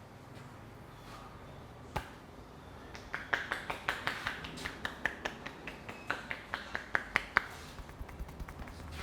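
Barber's hands slapping a client's back in quick percussive massage strokes: one sharp slap about two seconds in, then a rapid run of slaps, several a second, from about three seconds in to past seven seconds.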